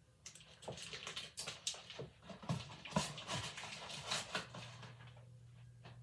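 Crinkly rustling and small clicks of a plastic wrapper being handled, stopping about four and a half seconds in, over a low steady hum.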